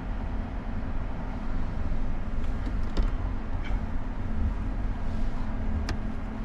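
Steady low rumble with a constant hum inside a parked car, with a few faint clicks and rustles as someone shifts on the mattress.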